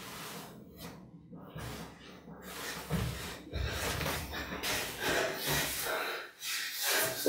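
A man breathing heavily in fright: quiet at first, then rapid, rough breaths of about two to three a second that grow louder from about halfway.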